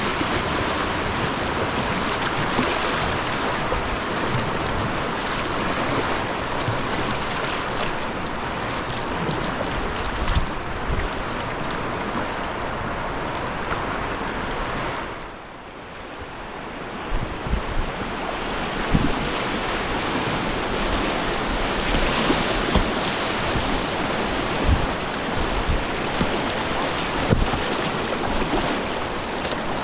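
Whitewater rapids rushing and splashing around a kayak, with wind buffeting the microphone and occasional low bumps. About halfway the sound briefly drops and turns muffled, then comes back.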